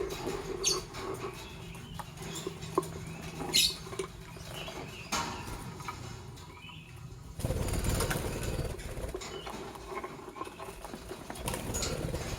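Lovebirds moving about: light scratching and pattering clicks with a few faint short chirps, and a louder rustling, flapping burst lasting about two seconds, starting about seven seconds in.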